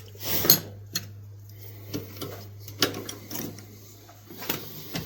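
A small diamond file rasping once across the steel of a pocket knife, followed by scattered light metallic clicks and taps as the knife and file are handled. A low steady hum runs underneath.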